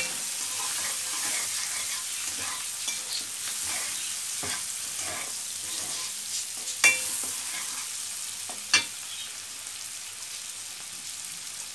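Prawns and onions frying in oil in a wok, a steady sizzle, while a steel spatula stirs and scrapes through them with a few sharp clanks against the pan. The stirring stops after about nine seconds, leaving the sizzle.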